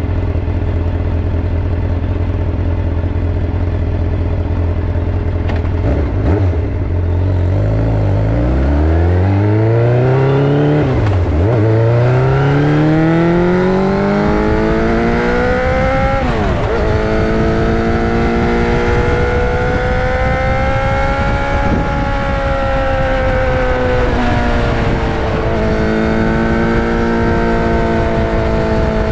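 Suzuki GSX-R 600 SRAD's inline-four engine and exhaust. It holds a steady low note for about seven seconds, then accelerates with the pitch rising and dropping sharply at two gear changes. Through the second half it holds a steadier, higher note.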